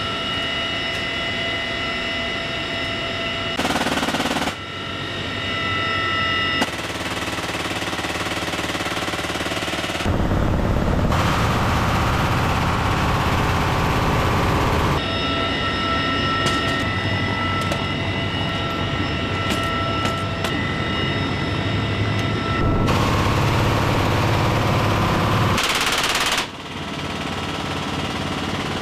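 GAU-21 .50-caliber machine guns firing from a CH-53E Super Stallion in flight, over the helicopter's steady whine. The sound changes abruptly every few seconds where one take cuts to the next.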